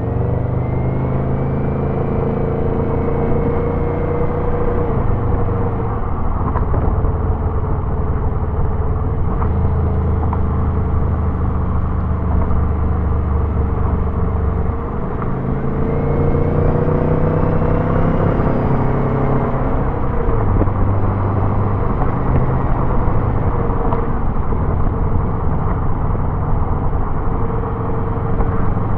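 Subaru turbocharged engine pulling on the highway, with the turbo spooling up: a rising whistle above the engine note as it builds boost, heard twice, near the start and again about halfway through. The engine note steps in pitch several times in between.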